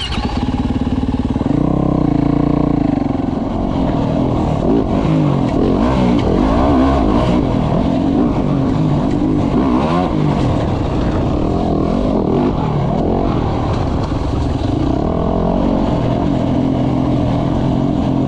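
Dirt bike engine running under throttle, its pitch rising and falling as it revs up and back off.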